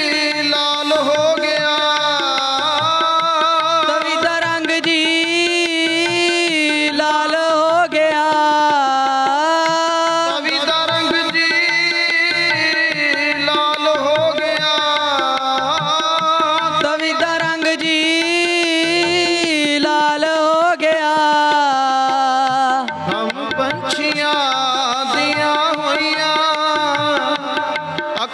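Harmonium playing an instrumental interlude over a steady hand-drum rhythm, the melody line wavering and gliding in pitch.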